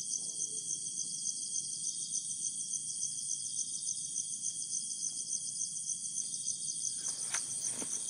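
Steady high-pitched insect chorus, pulsing rapidly, with a couple of faint clicks near the end.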